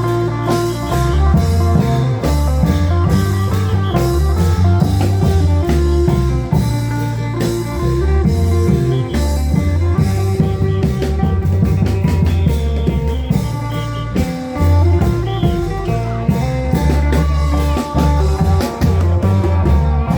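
Isan klong yao long-drum band playing loud, continuous music: drum strokes over heavy bass with a sustained amplified melody.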